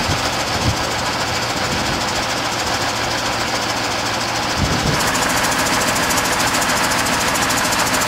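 Large truck engine idling steadily, a loud continuous rumble with hiss over it; its texture changes about five seconds in.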